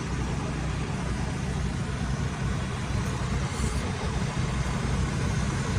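A vehicle engine idling, a steady low rumble with no change.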